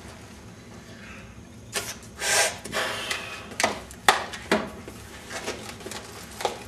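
Latex balloons being handled and worked by hand: a run of rubber rubbing and squeaking with several sharp snaps, beginning about two seconds in.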